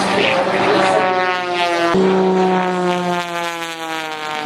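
Propeller airplane flying past, its engine note dropping steadily in pitch as it goes by.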